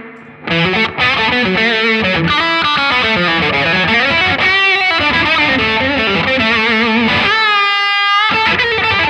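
Electric guitar played through a Laney Lionheart Foundry 60-watt tube combo on its overdriven lead channel, with the boost off. It plays a melodic lead line of sustained notes with vibrato, and near the end a high held note with wide vibrato that breaks off sharply.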